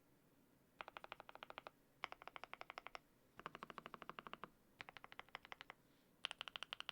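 Typing on a Zuoya GMK81 mechanical keyboard with lubed Gateron Smoothie Silver linear switches and cherry-profile keycaps. The keystrokes come in five quick runs of about a second each, roughly ten a second, with short pauses between.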